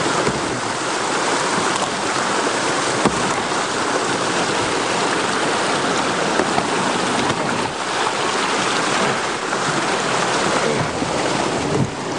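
White water rushing steadily over a low river dam and churning around a kayak stuck on its lip. A couple of faint knocks sound against the boat, one near the start and one about three seconds in.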